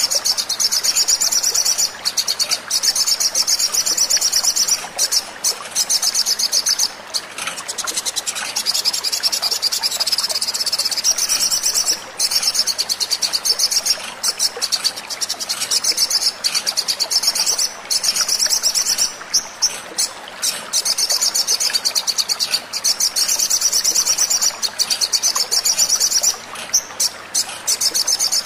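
Olive-backed sunbird calling in rapid, high-pitched twittering runs broken by short pauses, as a lure recording played to prompt a sunbird to sing.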